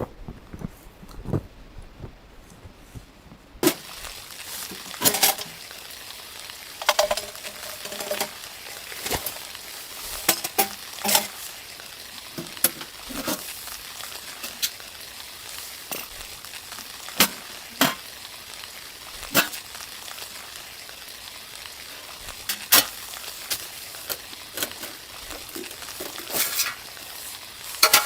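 Food sizzling and frying in a hot pan: a steady hiss that starts suddenly about four seconds in, with frequent sharp spitting pops.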